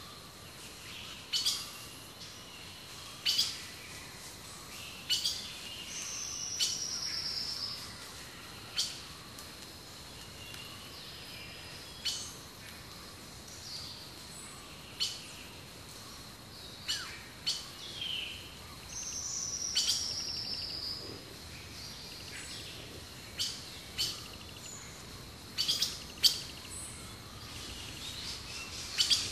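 Wild birds calling: short, sharp high chirps repeated every second or two, and twice a longer high trill that falls slightly in pitch.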